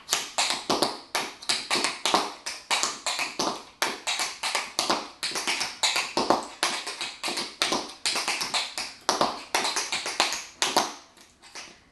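Tap dancing: tap shoes striking a concrete floor in quick, uneven runs of sharp taps, stopping near the end.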